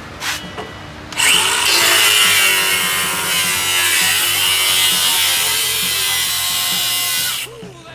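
A power tool running hard for about six seconds, a loud rasping noise with a high whine, starting about a second in and cutting off sharply near the end.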